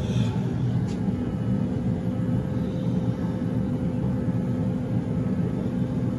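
High-efficiency (90%) gas furnace running in heat mode, its blower and burners making a steady rumble with a faint steady hum.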